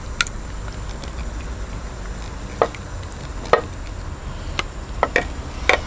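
A serving spoon and a ceramic plate knocking and scraping against a slow cooker's crock while chicken Alfredo and broccoli are dished out: half a dozen light, scattered clicks.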